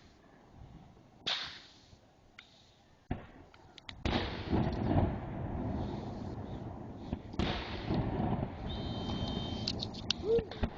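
Fireworks going off: a few separate bangs in the first seconds, then from about four seconds in a loud, continuous barrage of overlapping booms and crackle.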